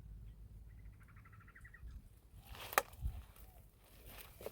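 A bird's short, fast trill about a second in, then a single sharp click near the middle.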